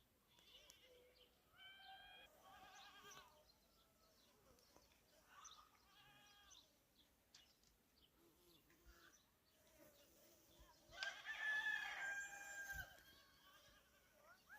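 Several animal calls, each with a clear pitch: two brief ones, then a longer, louder call about eleven seconds in lasting nearly two seconds.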